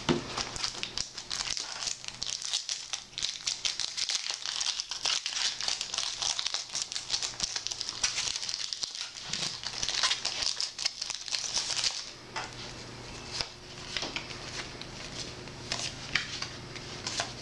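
Foil trading-card booster-pack wrapper crinkling and tearing as a pack is opened, dense and crackly for about twelve seconds. After that it gives way to lighter, scattered ticks of cards being handled.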